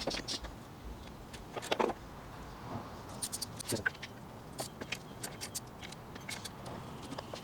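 Irregular metallic clicks and clinks of hand tools and small engine parts being handled, with a louder knock about two seconds in.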